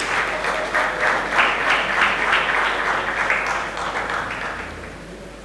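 A group of people applauding, the clapping dying away near the end.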